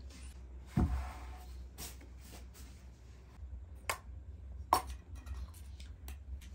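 A few sharp knocks and clicks over a steady low hum: the loudest knock comes about a second in, with two more sharp clicks near four and five seconds in.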